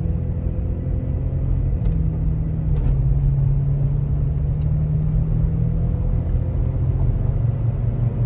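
Toyota Tacoma running, heard from inside the cab: a steady low engine hum that grows a little louder about three seconds in, with a few light clicks.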